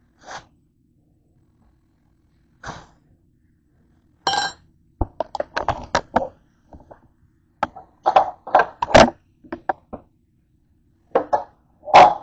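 Irregular knocks and clatters of things being handled on a kitchen counter: two single knocks, then a dense run of them from about four seconds in, with the loudest knock near the end.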